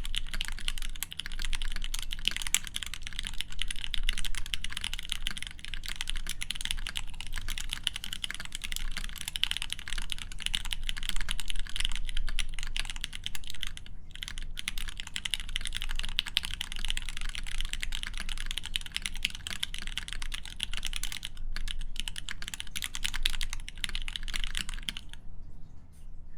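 Fast, continuous typing on a Foxlab F80 SE mechanical keyboard with lubed Everglide Crystal Purple tactile switches, an aluminium plate and GMK keycaps: a dense run of key clacks with a couple of brief pauses, stopping shortly before the end.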